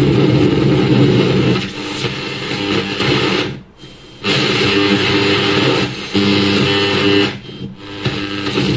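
Guitar music from the Aiwa TA123 Walkman's radio, played out through a Bluetooth speaker over an aux cable. It drops out twice for about half a second.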